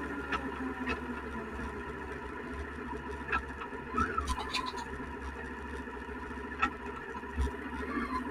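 Suzuki SV650X motorcycle's V-twin engine running steadily, picked up by an SJCAM action camera's microphone. There are scattered short clicks, and a brief rising-then-falling tone about four seconds in.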